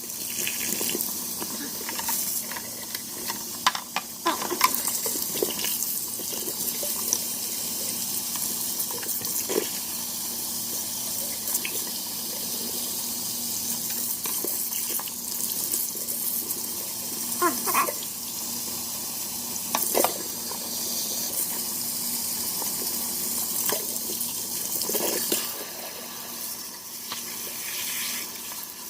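Tap water running and splashing steadily over a dishwasher part in a sink, with scattered knocks as the part is handled.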